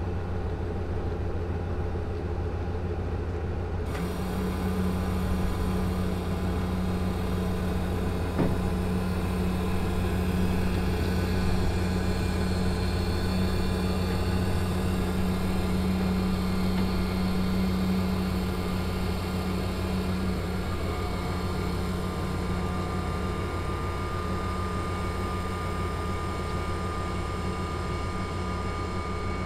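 A steady engine drone, a low even hum with overtones that holds unchanged throughout.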